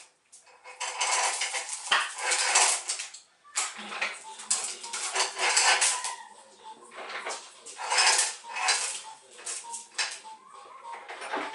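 Steel chain rattling and clinking in repeated bursts as it is pulled and handled against the floor and the dropped engine.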